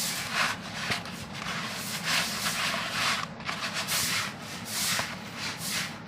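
Hands kneading atta (wheat-flour dough), a rhythmic rubbing and squishing, a little more than one stroke a second.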